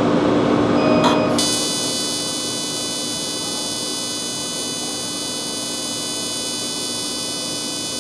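Excimer laser firing during topography-guided corneal ablation of a keratoconus eye. A short beep comes about a second in, then a steady high-pitched buzz from the laser's rapid pulses starts about a second and a half in and holds, over a constant low machine hum.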